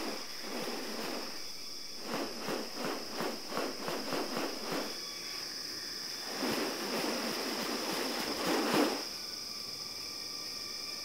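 A steady high insect drone. Over it come raspy, rustling bursts: a run of short pulses about two or three a second, then a longer rasp that grows louder and cuts off suddenly.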